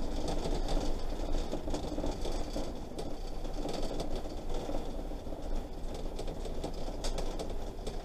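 Motorhome driving slowly on a dirt track, heard from inside the cab: a steady drone of engine and tyres on the unpaved road, with many small rattles and clicks from the cabin.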